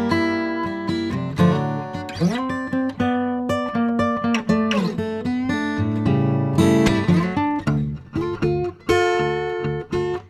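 Background acoustic guitar music: plucked and strummed notes, several of them sliding in pitch.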